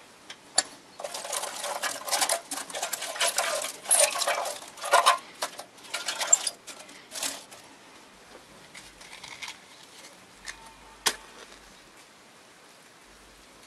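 Pine cones dropped by hand into a metal forge firepot, clattering and rustling against the metal for several seconds. After a lull, a match is struck once, a single sharp scrape.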